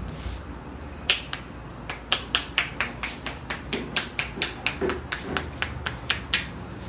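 Rapid sharp hand clicks from a barber's percussive head massage, about three to four a second, starting about a second in.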